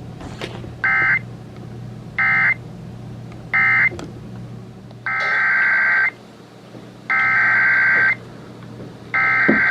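EAS/SAME digital data bursts: three short buzzy bursts, the end-of-message code closing one warning. They are followed by three longer bursts, each about a second long, the header of the next alert. A steady low hum runs underneath.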